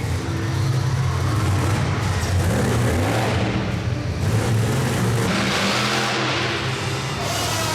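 Large vehicle engine running loudly, its pitch rising and falling a little as it is revved.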